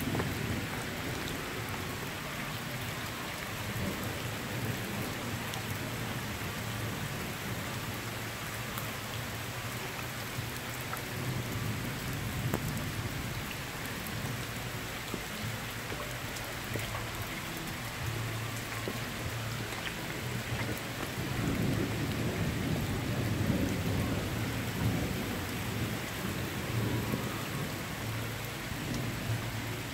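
Steady rain falling on stone paving and foliage, an even hiss throughout. A low rumble swells about twenty seconds in and fades a few seconds later.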